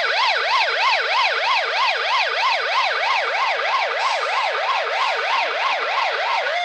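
Police car siren in a fast yelp mode: one wailing tone rising and falling rapidly and evenly, about four sweeps a second.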